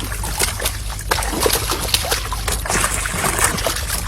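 Water splashing and trickling in many quick, irregular splashes, over a steady low hum.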